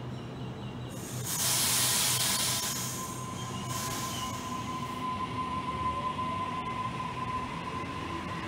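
Double-deck Sydney Trains electric train running past along the platform, its wheels rumbling on the rails and letting out a steady high squeal. A loud burst of hiss comes about a second in.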